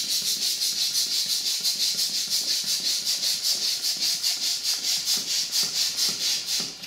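Hand-held plastic balloon pump being worked back and forth to inflate a latex balloon: a quick, even rhythm of hissing air puffs, one per stroke, that stops near the end.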